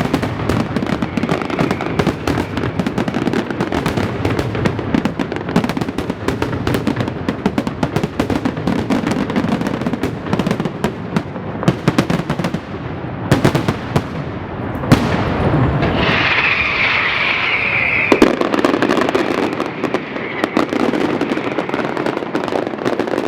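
Aerial fireworks display going off in rapid succession: a dense barrage of bangs and crackling. About two-thirds of the way in, a shrill high hissing rises over it for about two seconds.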